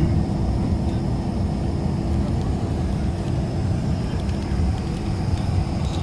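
Steady cabin noise inside a Sukhoi Superjet 100 airliner: an even low rumble with a constant hum and a faint high whine.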